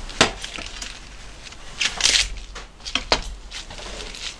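Fresh leaf lettuce being torn and pulled apart by hand: a few short, crisp tearing and rustling sounds, the longest about two seconds in.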